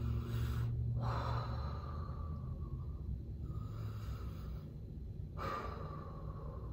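A woman taking slow, deep belly breaths in and out through the mouth, about four audible breaths in a row, each one to two seconds long: diaphragm breathing of the kind practised for playing a wind instrument.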